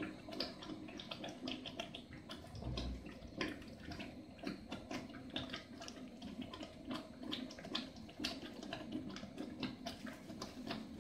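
Thick tomato and red pepper paste boiling in a large aluminium pot, bubbles bursting at the surface with irregular soft pops.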